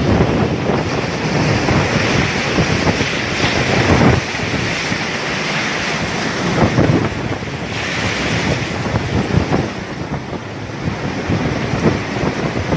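Heavy storm seas crashing over a ship's bow and washing across the deck, with strong wind buffeting the microphone. The rush of water surges several times as waves break.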